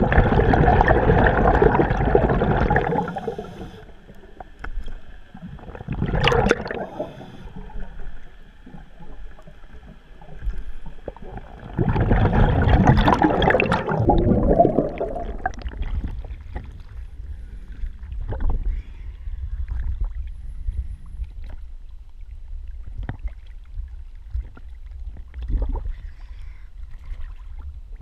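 Scuba diver's regulator exhaling underwater: two long bursts of exhaust bubbles, one at the start and one about twelve seconds in, and a shorter burst around six seconds, over a low steady rumble, with a few faint clicks in the second half.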